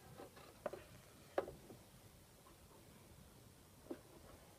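Faint handling noise of a 1/6-scale action figure being turned by hand on its display base: three soft taps, the clearest about a second and a half in, over quiet room tone.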